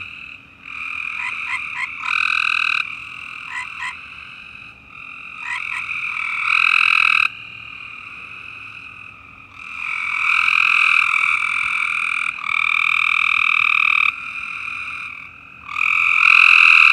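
A loud chorus of frogs calling. Long calls of one to three seconds each come one after another and overlap. Between them are quick clusters of short chirps.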